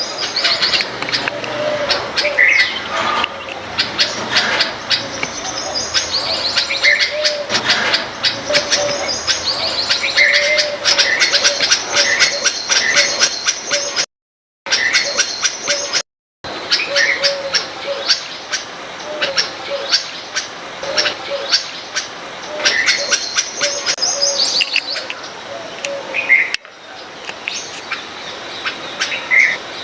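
Several backyard birds chirping and calling over one another: rapid high twittering with repeated lower notes running through it. The sound cuts out completely twice, briefly, around the middle.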